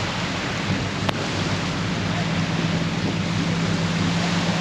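Steady rushing of wind buffeting the microphone and water, with a low, steady engine hum coming in about two seconds in from a Jeep crossing a lake. A single sharp click about a second in.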